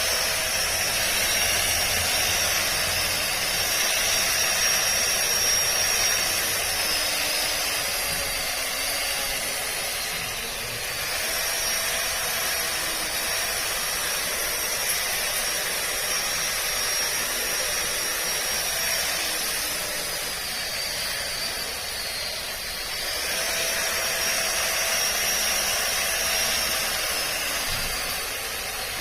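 Makita 18V cordless split-shaft grass trimmer running as it cuts grass, its motor's high whine sagging in pitch and level twice and coming back up.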